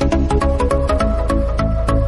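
Background music with a steady electronic beat, a bass line and a melody.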